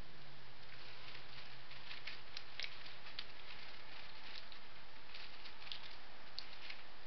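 Quiet room tone: a steady hiss with faint, scattered ticks and rustles, and a faint low hum that fades out in the first second or two.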